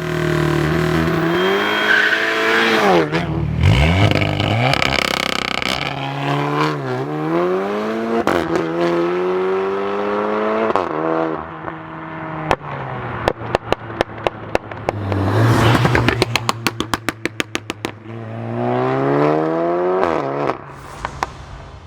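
Audi S3 8V's tuned 2.0 turbo four-cylinder through a Cende catback exhaust, pulling hard several times: the pitch rises steadily and drops sharply at each upshift. In the middle comes a long run of rapid, sharp exhaust pops and crackles, then one more rising pull near the end.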